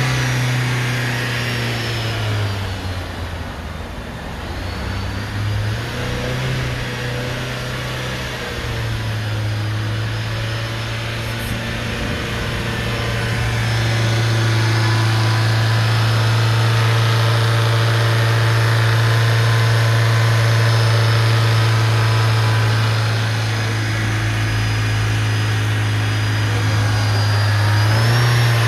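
Car engine running, its speed stepped up and down a few times, then held higher and steady for several seconds midway before dropping back. The engine has a noise its owner finds abnormal, alongside white smoke from the exhaust.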